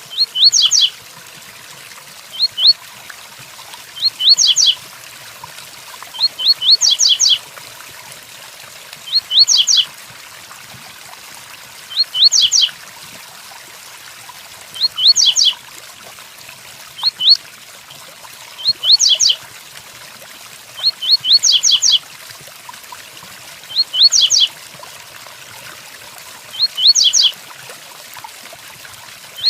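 Double-collared seedeater (coleiro) singing the Tui-Tuí Fibra song type: a short high phrase of a few quick rising notes, repeated about every two to three seconds. Under it runs a steady hiss of rain sound.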